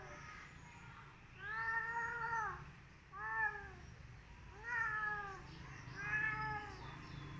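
Orange-and-white tom cat yowling: four drawn-out meows, each rising then falling in pitch, the first about a second and a half in.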